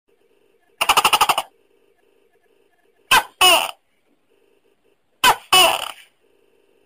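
Tokay gecko calling: a quick rattling chuckle about a second in, then two "to-kay" calls about two seconds apart, each a short note followed by a longer one that falls in pitch.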